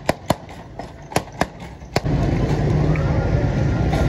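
Glass soda bottles being knocked open with a hand-held metal opener: a quick run of sharp pops. About two seconds in, the sound gives way to a steady din of street traffic and crowd.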